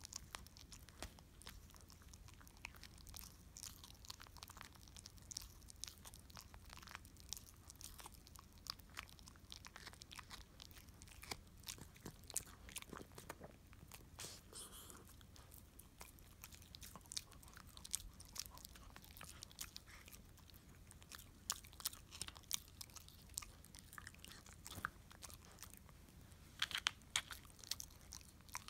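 A dog gnawing and chewing on a bone up close: irregular crunching clicks of teeth on bone, a cluster of louder ones near the end.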